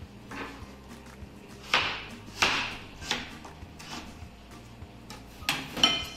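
Chef's knife chopping through a peeled potato onto a wooden cutting board: a few separate chops, with a pause a little after the middle, over quiet background music.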